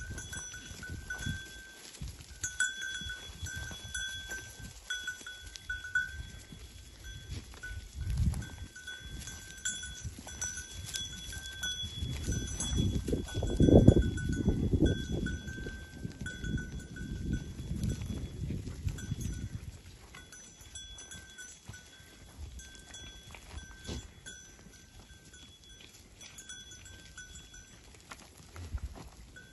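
Bells on a grazing herd of long-haired goats clinking and ringing almost without a break, with a louder low rumble around the middle.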